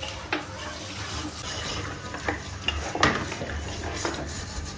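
Wooden spatula stirring pieces of cooked mutton through hot oil and ginger-garlic paste in a pot: a steady sizzle of frying with scrapes and a few knocks of the spatula against the pot, the sharpest about three seconds in.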